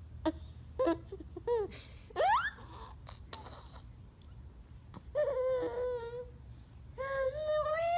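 A baby vocalising: a few short high squeals and a quick rising squeal, then longer, wavering, whiny babbling sounds.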